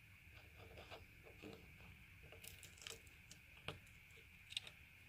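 Clear slime being poked and pressed with fingers in a plastic tub, giving faint sticky clicks and crackles, with a few sharper pops about three, three and a half and four and a half seconds in.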